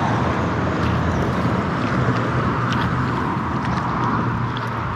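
Steady highway traffic noise from cars and trucks crossing the Highway 1 freeway bridge: a continuous low rumble with tyre hiss, no breaks.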